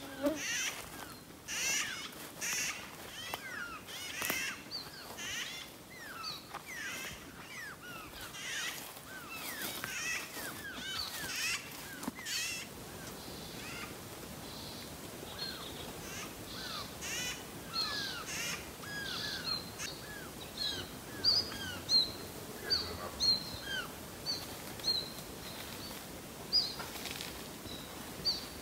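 Several birds calling back and forth. The first half is a busy flurry of short, downward-sweeping calls. From about two-thirds of the way in come sharp, high, brief calls, one or two a second.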